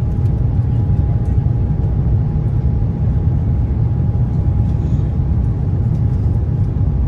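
Airliner climbing out after take-off, heard from inside the aircraft: a steady, loud low rumble of engines and rushing air, with a faint steady hum over it.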